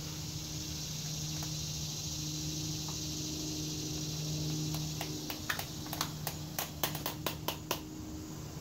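Sharp little clicks, a quick run of about a dozen over some three seconds in the second half, as snuff tins are handled. Under them runs a steady low hum and a high hiss.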